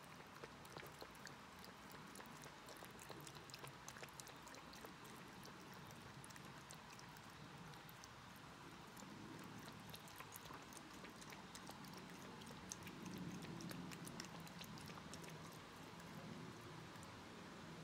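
A tabby cat lapping water from a mug: a faint, steady run of quick, soft wet ticks.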